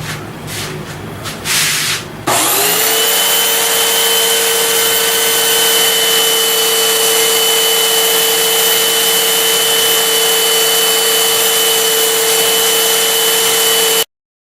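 A few short rubbing noises, then an electric shop machine's motor spins up quickly about two seconds in and runs at a steady whine with a loud rushing hiss, cutting off abruptly near the end.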